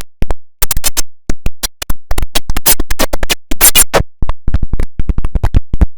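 A digitally chopped and stuttered computer system sound: the IBM OS/2 Warp 3 shutdown sound cut into many short, loud fragments that start and stop abruptly at a fast, uneven rhythm, like record scratching.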